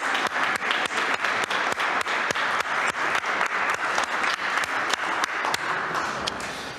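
Congregation applauding: many hands clapping steadily, dying away near the end.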